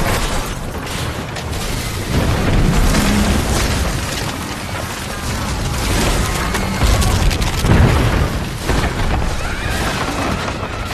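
Film sound effects of a violent earthquake: a continuous deep rumble with crashing debris, surging loudest about two to three seconds in and again around seven to eight seconds in. A music score plays underneath.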